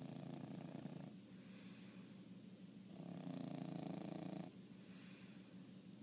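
English bulldog snoring in its sleep: two loud, rough snores about three and a half seconds apart, with quieter breaths between them.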